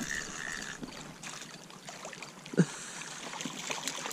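Small hooked catfish being reeled in at the water's edge: water splashing and rippling, over faint trilling of night insects, with one sharp knock about two and a half seconds in.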